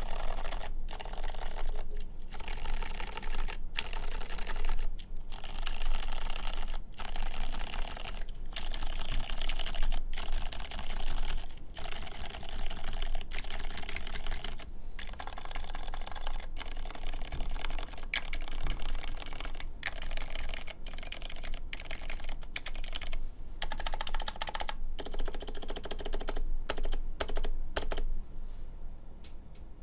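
Steady typing on a 4GT Sabre mechanical keyboard with Cherry MX2A Silent Red switches on an aluminum plate: a dense run of muted keystrokes broken by short pauses, trailing off near the end.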